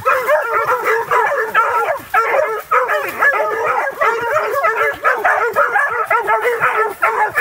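A pack of possum-hunting dogs barking and yipping together at a possum caught in a wire cage trap, many voices overlapping in an unbroken chorus.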